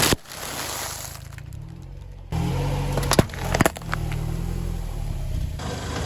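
A car's engine running slowly, with two sharp cracks a little after three seconds in, as a tyre crushes something brittle beneath it.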